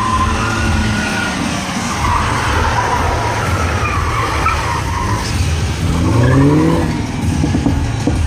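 MINI hatchback's tyres squealing on tarmac as the car turns sharply, with its engine revving up in a rising pitch about six seconds in.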